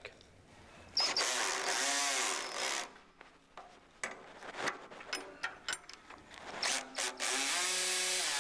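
Power drill/driver tightening the bracket bolts on a steel snowplow blade, in two runs of about two seconds, about a second in and near the end; its pitch sags as the bolt pulls tight. Light metal clicks of a wrench on the nuts come in between.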